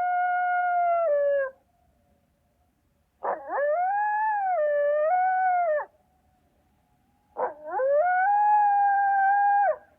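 Coyote howling: three long howls, each swooping up at the start and then holding a steady pitch. The first is already going and ends about a second and a half in.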